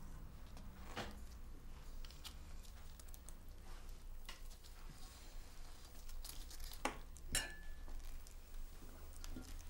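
Forks clinking now and then against plates and a serving dish during a meal, with a sharper clink about seven seconds in that rings briefly. A steady low hum underneath.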